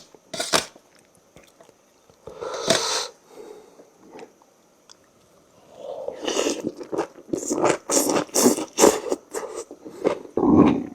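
Close-miked eating sounds of a person chewing rice noodles and side vegetables: a few clicks and a short burst near the start, then rapid, busy chewing from about six seconds in.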